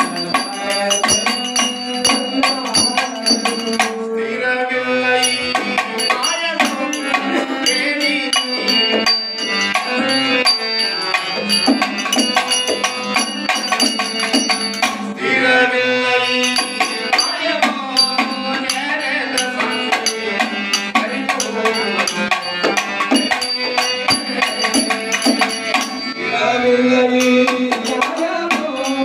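Kannada folk devotional bhajan music: a hand drum and small hand cymbals keep a fast, steady beat under a sustained melody line, with phrases swelling about 4, 15 and 26 seconds in.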